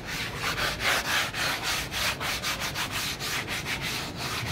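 A hand rubbing down the dusty surface of an unfired ceramic squat toilet pan to smooth it, in quick, even back-and-forth strokes.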